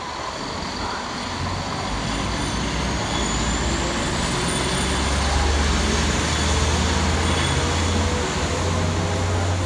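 Diesel locomotive engine running under load as it moves off slowly: a low, steady rumble that builds over the first couple of seconds, its pitch rising slightly.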